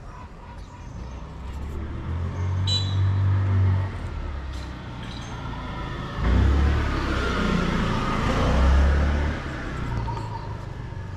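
A road vehicle passing close by: a rumble that builds over the first few seconds, then a louder swell of engine and tyre noise that peaks about eight seconds in and fades away.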